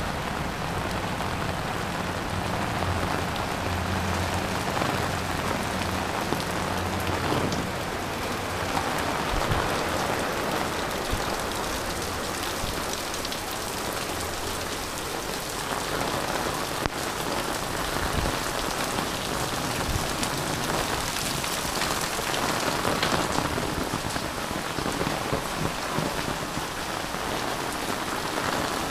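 Heavy rain falling steadily on roofs and wet pavement, an even hiss.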